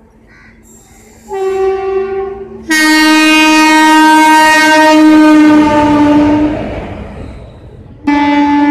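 Indian Railways WAP-4 electric locomotive's horn sounding as the train arrives: a short higher note about a second in, then a long, loud lower note lasting about four seconds, and another lower blast starting near the end, over the rumble of the moving train.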